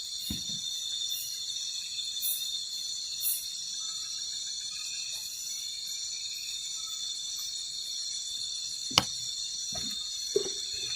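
Chorus of night insects: a steady, high-pitched, multi-layered trilling. Two sharp knocks or clicks break in near the end.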